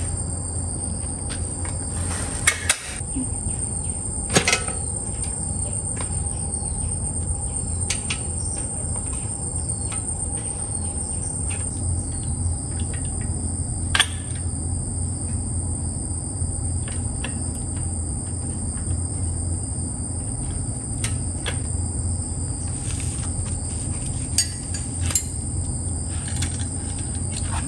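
Insects outdoors giving a steady high-pitched drone over a low hum, with a few sharp metallic clicks and knocks from a wrench working on a bicycle's rear hub.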